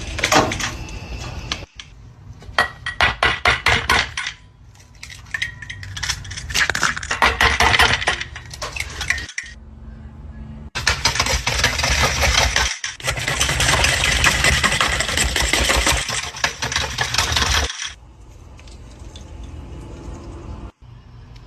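Kitchen utensils and dishes clinking and rattling in a run of short, abruptly cut segments, with a long stretch of steady, dense noise in the middle.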